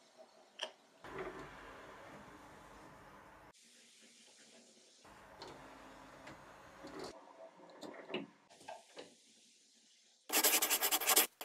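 Small 5 V stepper motor running in two stretches of about two seconds each, turning a 3D-printed gear along a rack to slide a steel-rod door bolt. A few light clicks follow, and near the end a much louder scratchy, scribbling noise starts.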